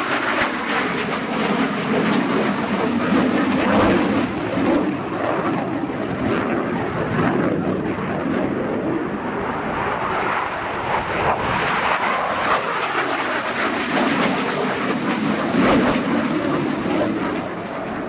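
Jet noise from a Eurofighter Typhoon's twin EJ200 turbofans: a loud, continuous rush that swells and eases a few times, louder around four seconds in and again near the end.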